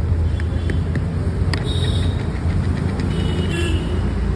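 Steady rumble of street traffic, with a few light clicks in the first second and a half.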